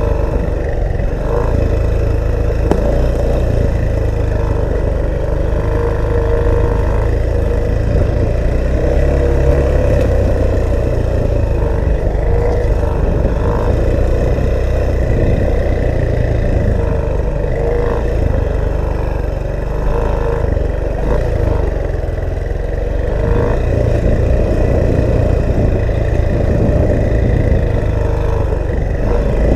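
Dirt bike engine running at a steady pitch while riding, with heavy wind rumble on the microphone.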